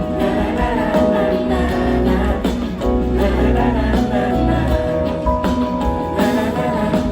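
Live band music playing loud and continuously, with singing over it.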